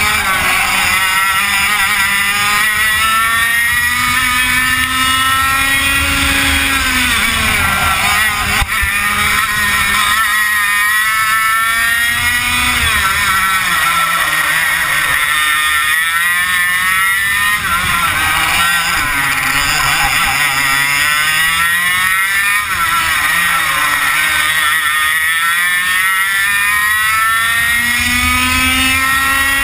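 A 100cc two-stroke racing kart engine at full race pace, heard onboard: its pitch climbs along each straight and drops sharply into each corner, over and over, all lap long.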